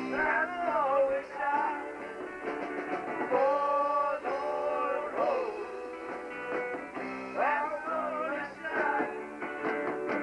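A rock-opera song performed live: a man and a woman sing into one handheld microphone over instrumental backing. The sound is muffled, with no top end, as on an old videotape recording.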